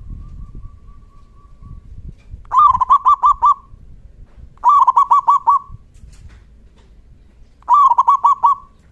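Zebra dove (perkutut) singing: three loud phrases, each a quick run of about five rippling cooing notes, spaced about two seconds apart.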